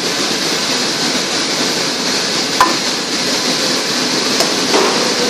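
Steady rushing background noise of a commercial kitchen, with two short sharp clicks, about two and a half and four and a half seconds in.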